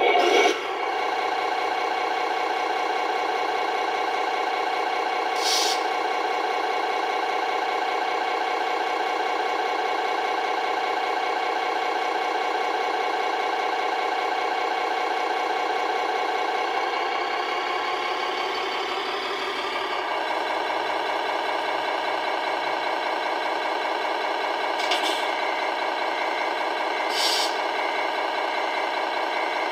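Servonaut sound module in a Tamiya Scania R620 RC truck playing a simulated diesel truck engine through the model's speaker. The engine sound starts abruptly with a loud first moment, then runs at a steady idle. The engine note changes for a few seconds just past the middle, and there are short air-brake hisses about five seconds in and twice near the end.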